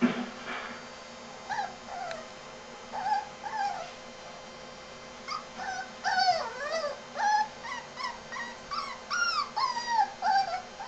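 A young Italian Greyhound puppy whining in short, pitch-bending cries, a few at first, then coming thick and fast through the second half. The whining is a call for attention, the puppy wanting to be picked up. A single sharp thump at the very start is the loudest sound.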